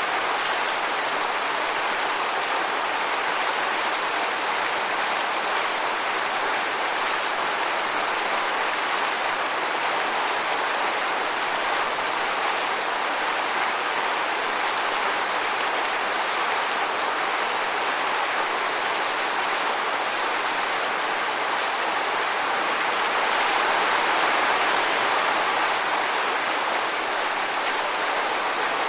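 Waterfall: a steady rush of falling water, swelling slightly near the end.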